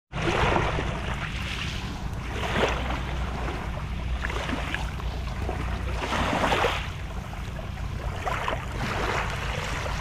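Small waves lapping onto a pebbly shore, each one washing in as a hiss of water over stones about every two seconds. Wind on the microphone adds a steady low rumble underneath.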